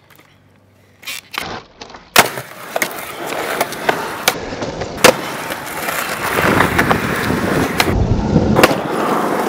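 Skateboard on concrete: wheels rolling with a steady noise that grows louder toward the end, broken by sharp cracks of the board popping and landing. The loudest crack comes about two seconds in, another about five seconds in, and a further hit near the end.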